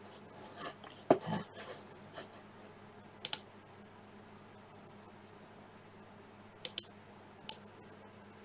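A few scattered clicks and taps of a computer keyboard and mouse being handled over a low steady electrical hum. The loudest click comes about a second in.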